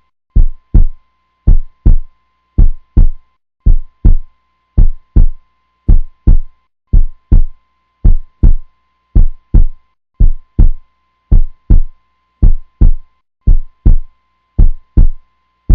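Heartbeat sound effect: slow, even double thumps, lub-dub, repeating about once a second, with a faint steady high tone beneath.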